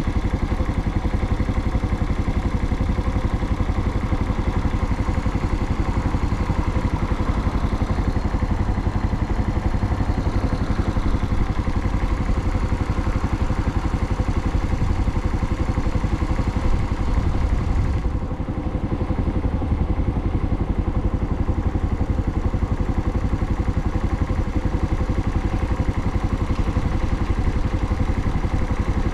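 Suzuki TU250X's single-cylinder engine running steadily under way, with a brief easing and drop in level about two-thirds of the way through.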